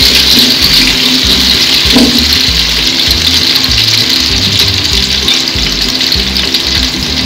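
Sliced onions sizzling steadily in hot oil in a large cooking pot as they start to fry. Background music with sustained low notes plays underneath.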